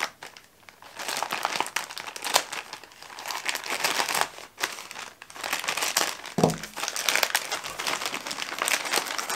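Yellow plastic mailing bag crinkling and crackling as it is handled, cut open with a pocket knife and pulled apart. A brief low knock comes past the middle.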